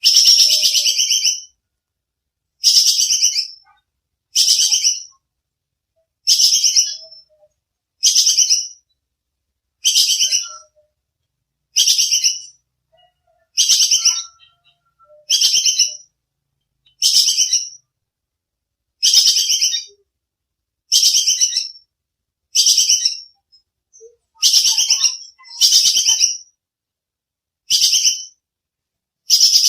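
Squirrel ('tupai kekes') giving its sharp, rasping chatter call over and over, each call a rapid burst about a second long, repeating every one and a half to two seconds.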